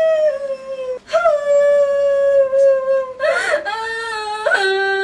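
A woman crying aloud in long drawn-out wails, each held cry sliding a little lower in pitch. Short sobbing catches break the wails about a second in, at about three seconds and at about four and a half seconds.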